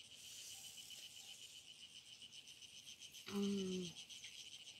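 Faint, steady, high-pitched chirring of insects with an even pulse. A short voiced sound from a woman breaks in a little over three seconds in.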